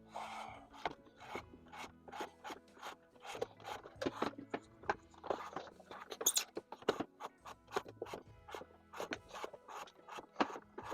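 Communication cable rubbing and scraping against the mini split indoor unit's plastic housing as it is pushed and fished through a hole, in a run of irregular scrapes and clicks.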